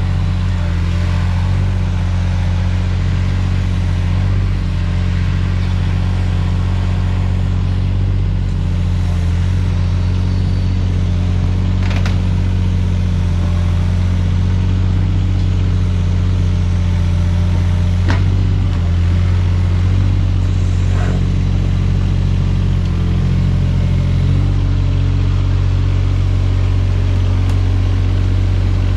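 Takeuchi TB216 mini excavator's diesel engine running steadily while the machine moves, with a few sharp clanks.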